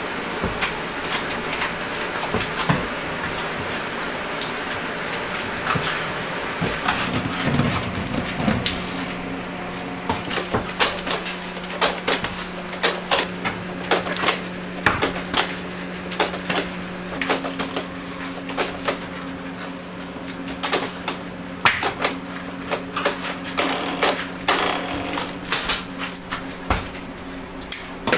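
Many short knocks, taps and clinks of hot candy and metal tools being worked on a steel table, over a steady low hum that starts about seven seconds in.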